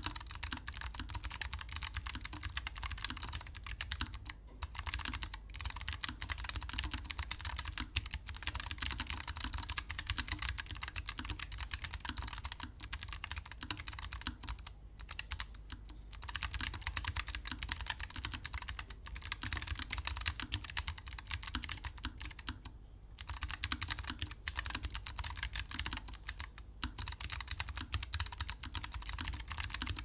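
Continuous typing on a Keychron S1 low-profile mechanical keyboard with clicky Gateron Low Profile Blue switches and LSA double-shot PBT low-profile keycaps: a dense run of key clicks with a few brief pauses.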